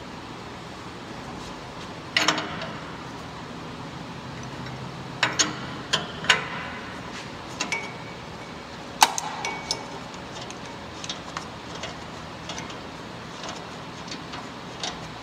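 Sharp plastic clicks and clinks from hands unclipping and handling the wiring connector and retaining clips of a downstream O2 sensor. They come in a scattered series, the loudest about two seconds in and about nine seconds in, some with a brief ring.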